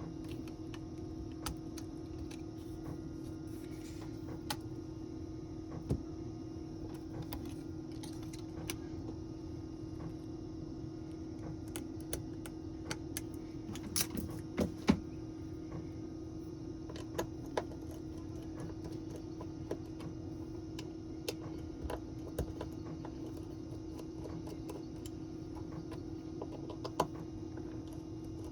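Scattered small clicks and taps of hand tools and parts on a Samsung Galaxy S20+ being repaired, a few sharper ones about halfway through, over a steady low hum.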